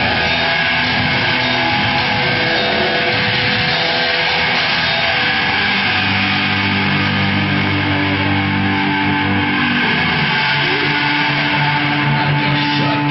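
Loud, heavily distorted electric guitar played as a dense wall of noise; from about six seconds in, low notes are held and ring steadily.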